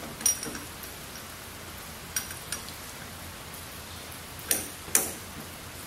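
Bolt, washer and mount hardware clinking metal on metal as they are handled at an aircraft engine mount: about five sharp clinks, the loudest two half a second apart near the end, over a steady hiss.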